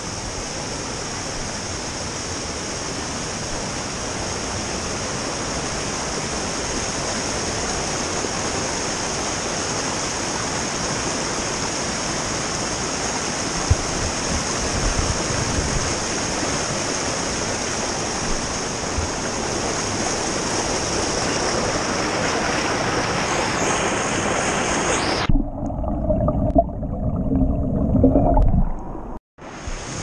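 Rushing water of a rocky mountain stream tumbling over small cascades, a steady rush. Near the end the rush cuts off abruptly, leaving irregular low bumps and rumbles on the microphone.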